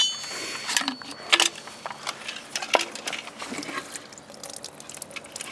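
A Tanaka ECV-4501 chainsaw's open tank emptying into a waste-oil pan: a brief hiss of pouring at the start, then a faint trickle and drips, with scattered light clicks and knocks as the saw is held and tipped.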